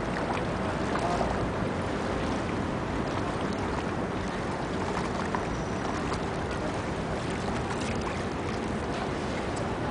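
Steady drone of a boat under way on open water, a low engine hum under a wash of water and wind noise on the microphone.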